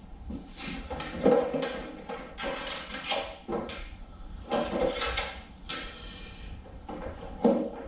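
Irregular knocks, clicks and clatter of motorcycle parts and tools being handled and set down, about a dozen sharp strikes, some with a short ring, loudest about a second in and again around five seconds.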